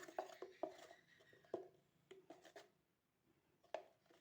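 Faint, irregular light clicks and taps of a spoon against kitchen vessels while spice is measured into the pan, most of them in the first two and a half seconds and a couple more near the end.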